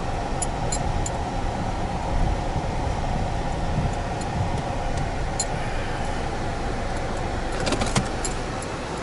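Inside a car driving slowly over a rough dirt road: steady engine and tyre rumble, with light clicks and rattles from the cabin, more of them about eight seconds in.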